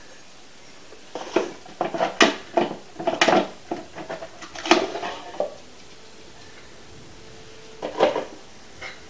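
Chef's knife slicing sausages into rounds on a wooden cutting board: a quick run of sharp knocks as the blade comes down on the board, a pause, then a couple more knocks near the end.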